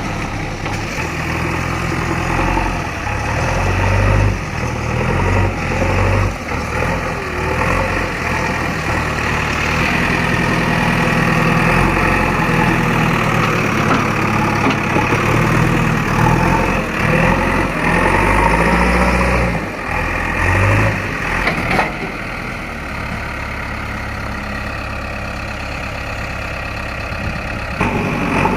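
JCB 3DX backhoe loader's diesel engine running under working load, its revs rising and falling unevenly, then settling to a steadier idle for the last several seconds.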